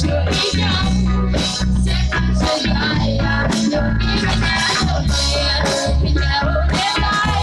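Live band playing a pop-rock song with electric guitar, heavy bass and a steady drum beat, a singing voice in the mix.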